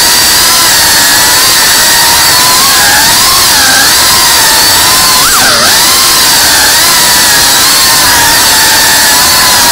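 FPV quadcopter's electric motors and propellers whining loudly, the pitch rising and falling with the throttle, with a sharp drop and quick recovery about five and a half seconds in.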